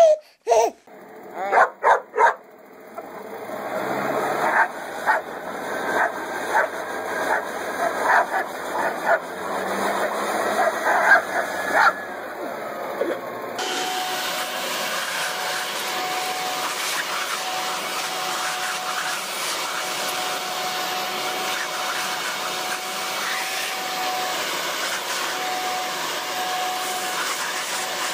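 Short loud bursts of laughter, then a dog barking over and over above a rising blower noise. About halfway through, the sound cuts to a leaf blower running steadily with a thin whine.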